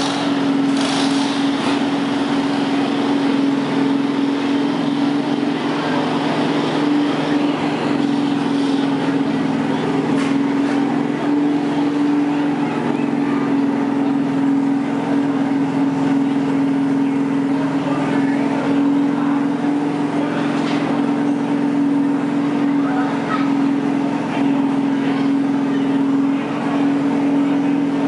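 Craftsman riding lawn mower engine running steadily under load, pulling in a kids' lawn mower pull, with an unchanging pitch throughout.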